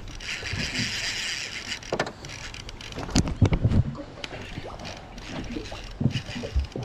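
Handling knocks and thumps on a small fishing boat, over wind and water noise. There is a hiss for the first couple of seconds, and a loud cluster of knocks about three seconds in.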